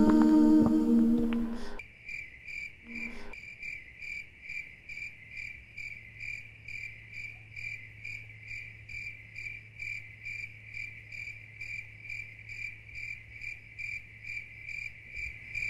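Music ends about two seconds in, then a cricket chirps steadily, about two chirps a second.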